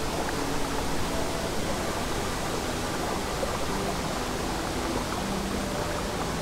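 Steady rushing of a babbling brook, with a few soft held music notes low underneath.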